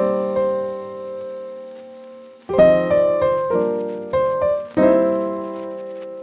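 Solo piano music: a chord rings and fades for about two and a half seconds, then a string of chords is struck roughly every half second, the last one left to ring out.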